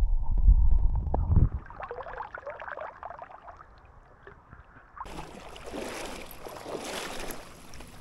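Muffled underwater sound of river water moving around a submerged camera: a loud low rumble for the first second and a half, then quieter with faint clicks. About five seconds in, as the camera comes up out of the water, it changes suddenly to a bright splashing hiss of water.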